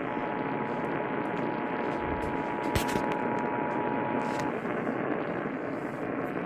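Emergency Alert System two-tone attention signal: a steady two-pitch tone that sounds for about four and a half seconds and then stops, over the hiss of radio reception. It marks the start of an emergency alert broadcast, and a sharp click comes about three seconds in.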